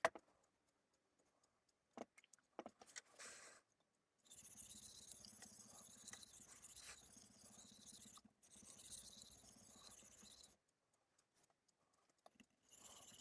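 Knife blade being sharpened on a 320-grit splash-and-go whetstone: a few light knocks as things are set down, then steady faint scraping of the steel across the stone. There are two runs of strokes, about four seconds and two seconds long, separated by short pauses, and the scraping starts again near the end.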